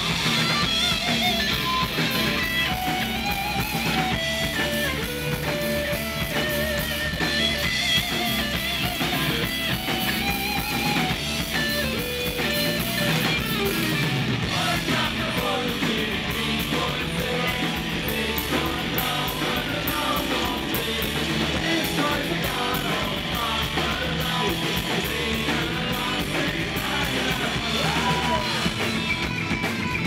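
Live rock band playing loud, with electric guitar, electric bass and drums, and a singing voice.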